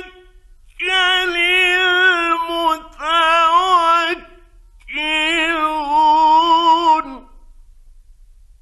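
A male Quran reciter's voice chanting in the mujawwad style, in three long, high melodic phrases with wavering, ornamented pitch. The phrases end about seven seconds in, and a pause follows.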